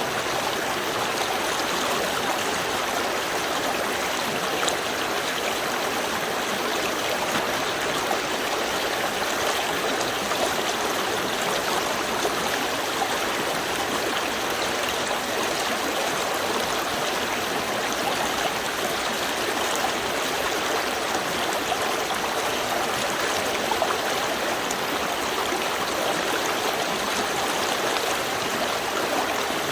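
A small stream flowing steadily over stones, a continuous babble and trickle of water.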